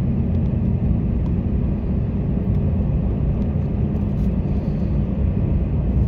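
Steady low rumble of tyre and engine noise heard inside the cabin of a car driving along a road.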